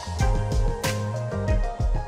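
Music with a bass line and a steady beat.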